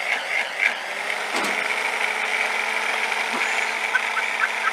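Steady hiss of a two-burner camping stove with a frying pan on it, with a light knock about a second and a half in.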